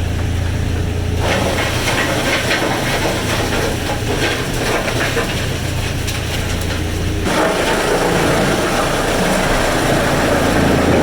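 Woodworking machinery running: steady mechanical noise over a low hum, changing abruptly about a second in and again about seven seconds in.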